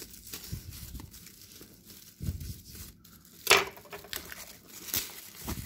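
Thin plastic courier bag crinkling and tearing as it is slit with a knife and pulled open by hand. The loudest, sharpest rustle comes about three and a half seconds in.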